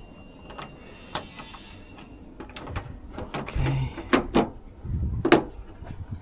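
Sharp metallic clicks and knocks of hand work on a van's door and lock mechanism, with a couple of duller thumps about halfway and near the end.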